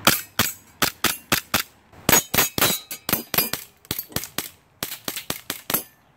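Stark Arms Glock 19 gas blowback airsoft pistol firing a fast, uneven string of about twenty semi-automatic shots, each a sharp crack with the slide snapping back, running on propane.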